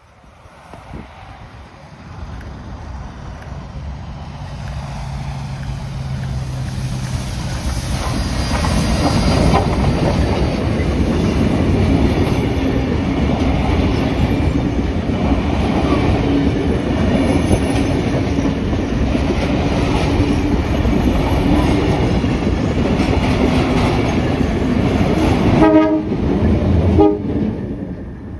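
Steam-hauled passenger train approaching and passing close by. It grows louder over the first several seconds, then the carriages roll past steadily, with a quick run of wheel clicks over the rail joints near the end before the sound falls away.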